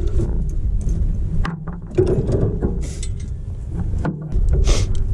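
Pipe wrench turning a threaded galvanized steel gas pipe fitting: metal clicks and scrapes over a steady low rumble, with a louder scrape near the end.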